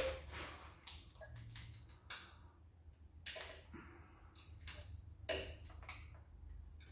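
Faint, scattered clicks and knocks about a second apart: a 13 mm wrench being worked on small bolts on the engine during teardown.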